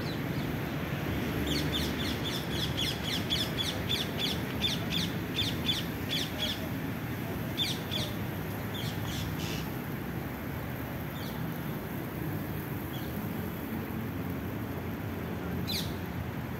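A bird calling in a fast run of short, high chirps, about three or four a second, for several seconds, then a few scattered chirps later, over a steady low background rumble.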